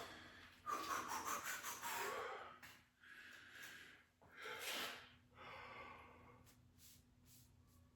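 A man breathing hard from exertion: a series of heavy, noisy breaths, the longest and loudest about a second in, another near the middle, then softer, quicker breaths toward the end.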